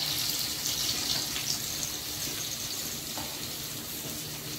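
Falafel balls frying in a pan of hot oil: a steady sizzling hiss with a few faint crackles.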